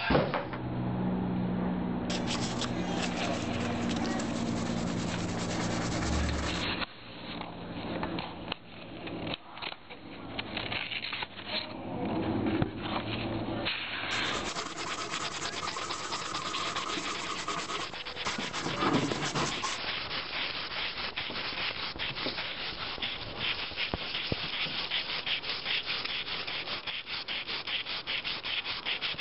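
Sandpaper being rubbed by hand over a wooden chair frame: quick, repeated back-and-forth scratching strokes, in several short stretches.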